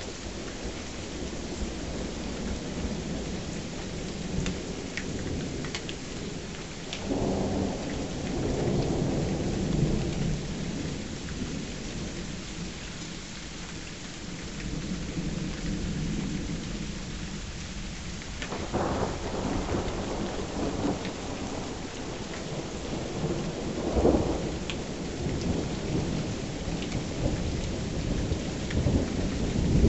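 Steady rain falling through a thunderstorm, with repeated thunder: a long low rumble that builds about seven seconds in, then sharper cracks that roll into rumbling around the middle, again a few seconds later, and right at the end.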